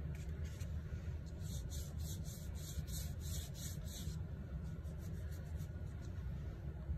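Paintbrush dabbing short strokes of paint onto paper, a soft scratchy brushing about three times a second that stops about four seconds in, over a low steady hum.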